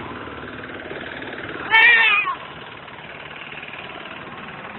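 An engine running steadily, with one short, loud, high call that bends and falls in pitch a little under two seconds in.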